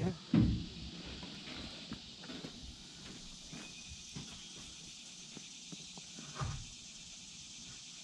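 Steady high insect drone, with a few thumps and knocks as a hydraulic hose is handled at the truck; the loudest thump comes about half a second in, and another about six and a half seconds in.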